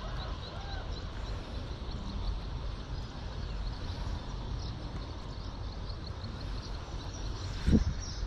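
Outdoor ambient noise: a steady low rumble with a regular faint high ticking, and a single thump near the end.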